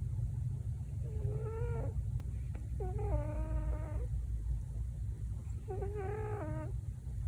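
Sleeping senior cat making three high, mew-like snores, one every two to three seconds, each lasting under a second or so, over a steady low hum.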